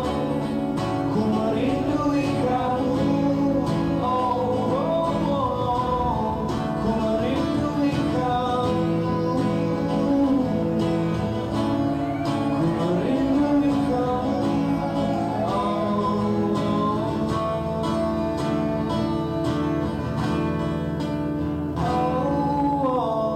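Live acoustic performance of a song: a male singer with acoustic guitar accompaniment, steady throughout.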